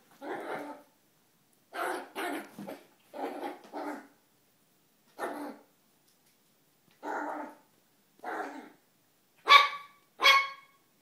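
Dogs barking in play: short barks in ones and pairs with pauses between, the last two near the end louder and sharper.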